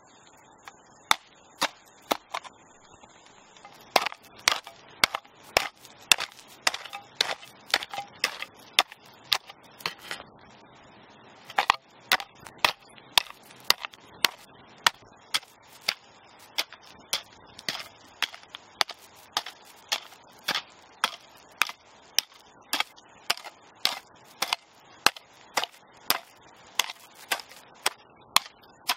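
Metal hoe blade chopping into dry, stony soil in quick repeated strokes, about two a second, with a short pause partway through.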